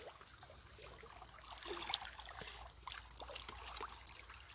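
Faint trickling and small splashes of river water as a landing net holding a barbel is handled in the shallows and the fish is lifted out by hand.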